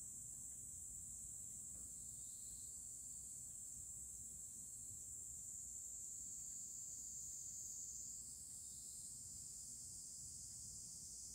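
Faint, steady high-pitched insect chorus, with a low steady hum underneath.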